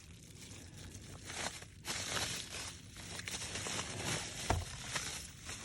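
Handling noise: rustling and crinkling with a couple of light knocks, as parts are handled by hand.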